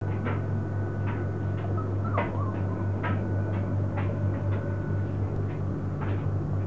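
Four-week-old Border Collie puppies giving short, high squeaks and yips, about one or two a second, over a steady low electrical hum.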